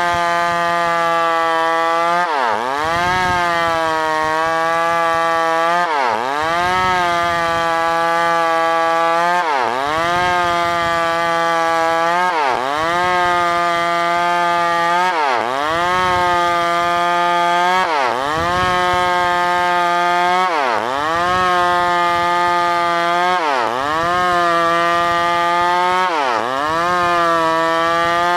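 New West PRO 888 two-stroke chainsaw running at high revs while sawing wood, its pitch dipping sharply and climbing back about every three seconds.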